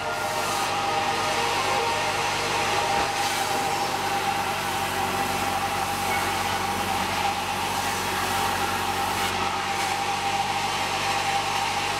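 Sawmill machinery running steadily, a constant whine over an even rushing noise.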